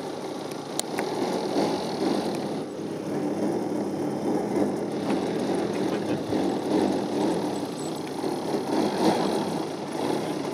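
Engine of a giant-scale radio-controlled aerobatic plane running at low throttle as the plane taxis, a little louder from about a second in.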